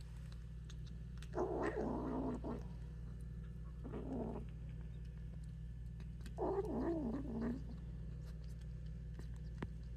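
A kitten eating and making three drawn-out, wavering vocal calls, the first about a second in and the last near the middle.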